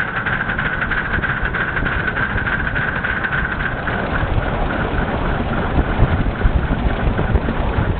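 Live-steam model LMS Black Five locomotive running under steam, its exhaust chuffing in rapid, even beats over a low rumble. A steady high tone under the chuffs fades out about four seconds in.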